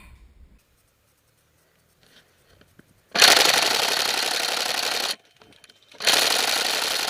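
Airsoft electric gun firing on full auto in two long bursts, the first starting suddenly about three seconds in and lasting about two seconds, the second starting about a second later and running on.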